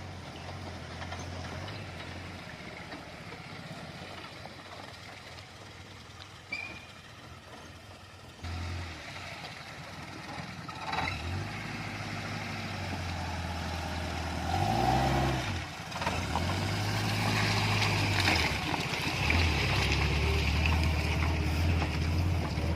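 Off-road car's engine running under load, its pitch rising and dropping several times as it revs, with a quick rev up and down a little past the middle. The engine and road noise grow louder through the second half.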